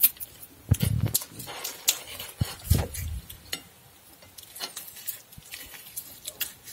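Metal spoon scraping and clicking against a glass plate while scooping soft grilled eggplant flesh, with two dull thumps, about a second in and about three seconds in.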